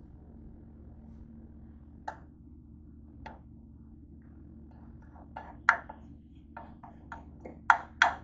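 A spoon scraping and tapping bean filling out of a frying pan: a couple of single taps, then a quick run of sharp knocks against the pan, loudest near the end.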